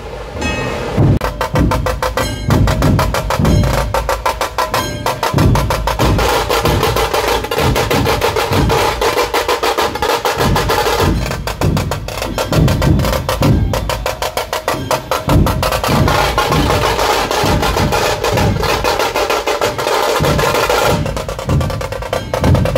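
A procession drum troupe of large dhol drums and smaller stick-played drums, playing a fast, dense rhythm of rapid stick strokes over heavy drum beats. The rhythm keeps going the whole time, easing only briefly a few times.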